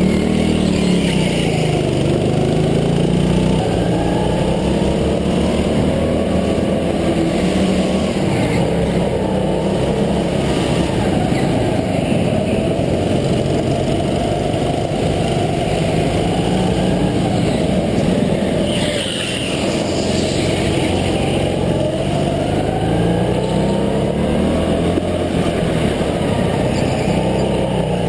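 Go-kart engine heard onboard at full race pace, its pitch rising and falling over and over as the kart accelerates and backs off through the corners.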